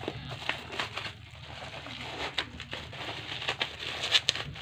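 Bubble wrap and plastic packaging crinkling and rustling as a parcel is unwrapped by hand, in irregular crackles, the loudest a little past four seconds in.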